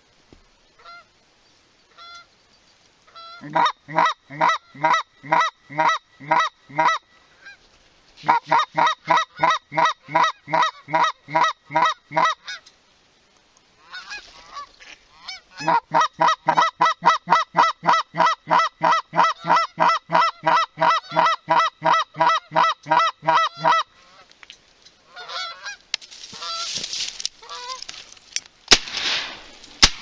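Goose call blown in three runs of evenly spaced, identical honks, about three a second, to work a flock of geese. Near the end a rushing noise and a couple of sharp cracks take over.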